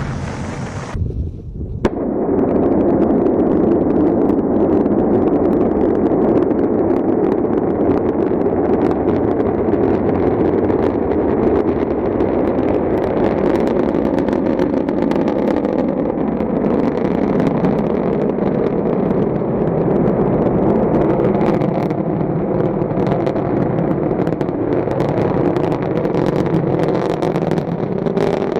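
Rocket engine exhaust noise from a launch: a loud, steady rumble with crackling over it. It sets in about two seconds in, just after a brief different clip cuts off.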